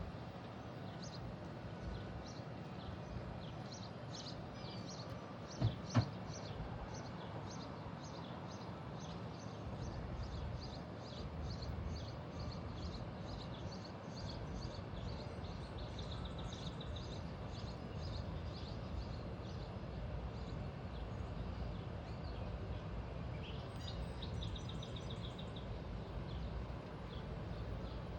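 A small bird chirping over and over, about twice a second, with a few short high trills later on, against a steady background of outdoor noise. Two sharp knocks sound about six seconds in.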